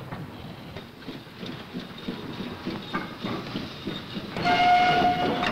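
Steam locomotive running with a rough, irregular rumble, then its whistle sounds as one steady, loud note for about a second near the end.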